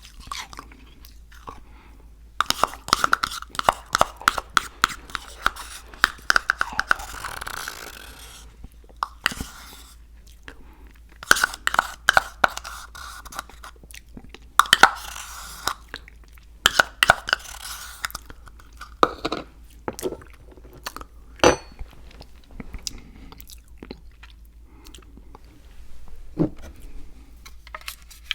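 Close-miked chewing of crunchy food, in several bursts of crisp crunching with quiet pauses between them and one sharp crack a little past the middle.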